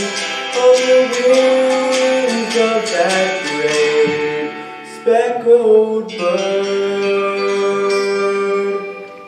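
Closing bars of a country gospel song: a plucked string instrument strums evenly over sustained notes, and the final chord rings out and fades near the end.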